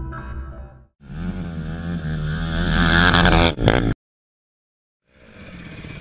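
The end of a music intro, then an off-road engine revving hard, its pitch and level climbing for about three seconds before cutting off abruptly. After about a second of silence, motorcycle engines running at a lower level come back in.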